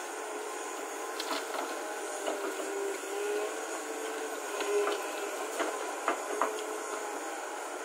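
Hyundai crawler excavator's diesel engine and hydraulics running under load as the bucket swings and dumps soil, with a wavering whine. Scattered knocks and clatters come as earth drops into the dump truck's steel bed.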